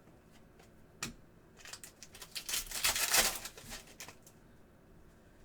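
Hands handling trading cards and foil pack wrappers: a single sharp click about a second in, then a run of crackling, rustling handling noise that is loudest around the middle and stops well before the end.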